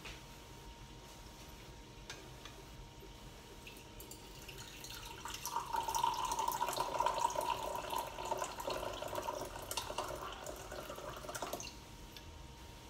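Liquid pouring in a steady stream for about seven seconds, starting about four and a half seconds in and stopping abruptly.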